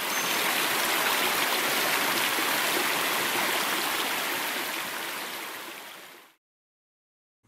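Creek water rushing steadily over rocks. It fades down and cuts off about six seconds in.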